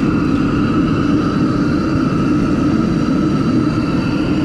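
A steady mechanical drone, like a running motor or fan, holding several constant tones without change.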